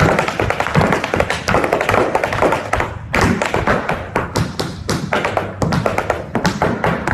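Tap shoes striking a hard floor in a fast, dense run of taps, with a short break about three seconds in.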